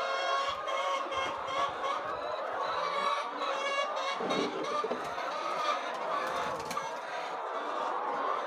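A flock of chickens clucking and calling, many birds at once in a steady, overlapping chorus.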